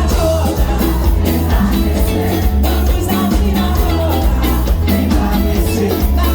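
Band playing upbeat music with a singer over a heavy bass and a steady drum beat.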